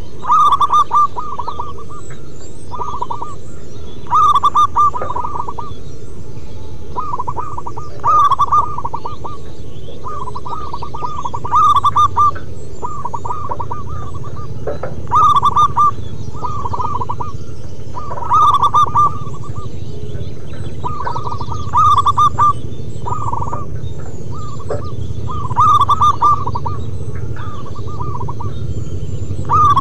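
Zebra doves (perkutut) cooing: phrases of short, rapid trilled coo notes repeated over and over. The loudest phrase comes about every four seconds and softer phrases fill the gaps, over a steady low rumble.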